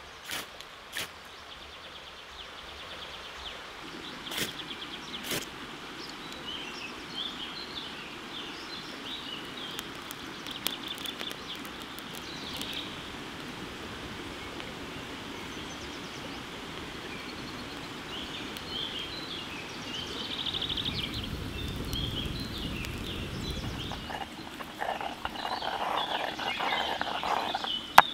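Small birds chirping and singing over a steady outdoor hiss, with a few sharp knocks in the first six seconds, a low rumble about twenty seconds in, and a louder stretch of sound near the end.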